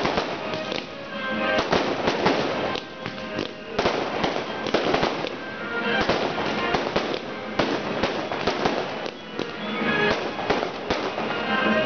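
Aerial fireworks display: shells bursting one after another, with dense crackling and popping throughout.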